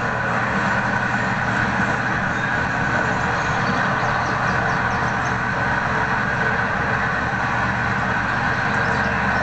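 A steady mechanical hum that holds the same pitch and loudness throughout.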